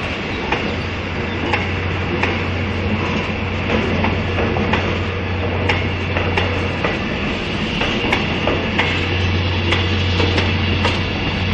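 DOST-MIRDC Hybrid Electric Train rolling slowly past, its wheels clicking and knocking irregularly over the rail joints, with a steady low hum.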